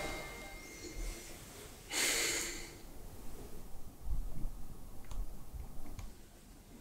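A person breathing out heavily once, a loud snort-like exhale about two seconds in, followed by faint clicks and soft low thumps. The tail of background music fades out at the start.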